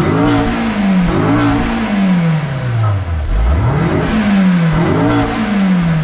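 Honda S2000's four-cylinder engine revved four times through its exhaust with the factory catalytic converter, whose inner mesh has broken loose. Each rev climbs quickly and then winds down slowly.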